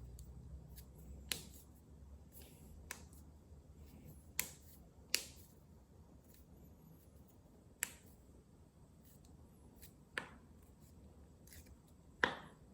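Human joints cracking: a series of single sharp pops spaced a second or more apart, with fainter ticks between them and the loudest pop near the end.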